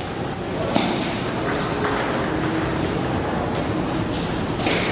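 Table tennis ball being hit back and forth: several short, sharp pings and clicks of the ball on bats and table over a steady background hum of a busy hall.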